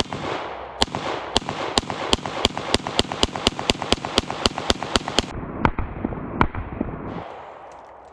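Ruger 57 pistol firing 5.7x28 mm rounds in a rapid string, about three to four shots a second, ending in two slower, spaced-out shots before it falls silent. The firing stops short because the pistol jams on the last round of the 20-round magazine.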